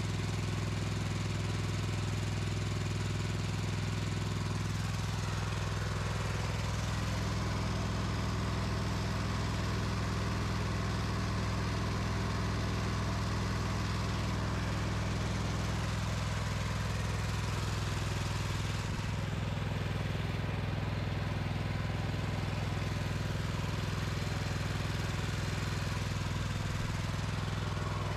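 Kohler KT715 V-twin engine of a Craftsman Z5200 zero-turn mower running at a steady speed, an even unchanging drone, just after a fuel-filter change and fuel treatment.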